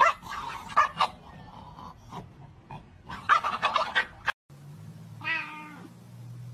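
Puppies scuffling, one giving short high-pitched yelps and whines in two bunches. After a cut comes a single falling animal cry over a low steady hum.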